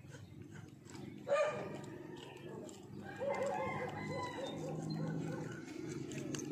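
Animal calls: a sharp, loud pitched call about a second in, then a run of short repeated calls in the middle, over a low steady rumble.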